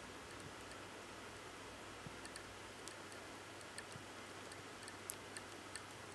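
Faint, irregular small clicks of newborn kittens suckling at their mother, over a steady hiss; one sharper click about five seconds in.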